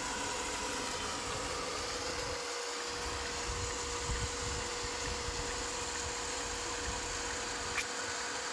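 A commercial reverse-osmosis water filter plant's pump motor running steadily, a constant whirring noise with an even hum; one faint click near the end.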